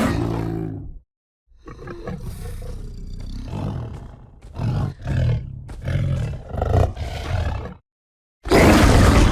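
Sabertooth cat (Smilodon) sound effects made from blended lion and tiger roars: a roar dying away in the first second, then a long low growl, then a run of about five short growls, and a loud roar breaking in near the end.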